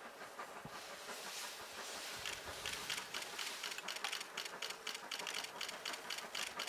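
Camera shutters firing in rapid bursts: a dense run of sharp clicks, several a second, thickening from about two seconds in.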